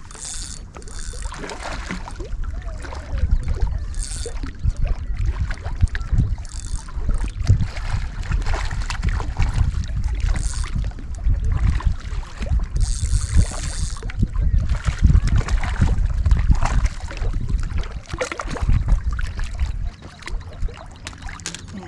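Water splashing and handling noise while a fish is played in on rod and reel, over a heavy low rumble on the microphone, with several short high-pitched bursts.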